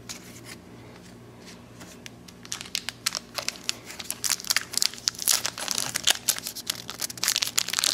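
Wrapper of a baseball card pack crinkling and tearing as it is opened by hand. The crackling starts about two seconds in and grows louder toward the end.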